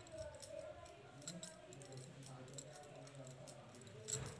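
Metal knitting needles clicking and tapping lightly against each other as stitches are worked: a faint run of small irregular ticks, a little louder about four seconds in.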